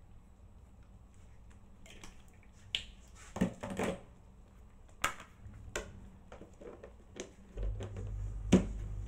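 Scattered clicks and knocks of kitchen items and containers being handled, the loudest knock near the end. A steady low hum comes on about three-quarters of the way through.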